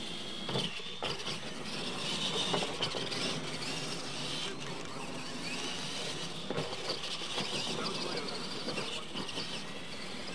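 Electric RC monster trucks racing on dirt, their motors and gearboxes whining, the pitch rising and falling as the drivers work the throttle.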